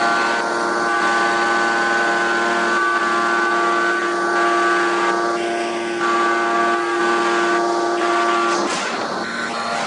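Hydraulic open-die forging press running: a steady whine of several tones over a noisy hiss, which stops about nine seconds in.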